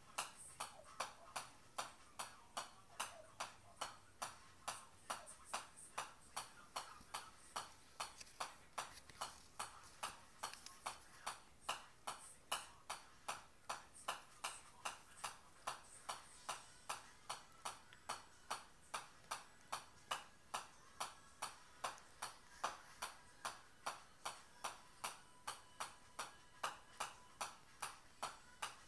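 Golf ball bouncing again and again on the face of a pitching wedge, a sharp metallic tap about two and a half times a second in a steady, unbroken rhythm.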